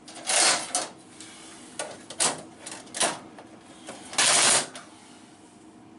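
Sheet-metal bracket parts clattering and scraping against the microwave's metal case a few times. Then, about four seconds in, a cordless drill driving a screw into the case for half a second, the loudest sound.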